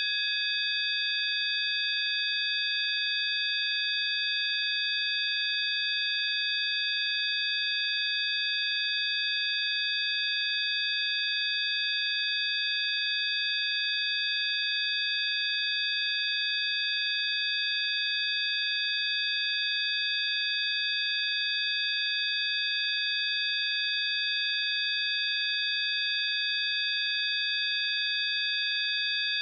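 Several high, pure electronic sine tones sounding together, held perfectly steady without any change in pitch or loudness.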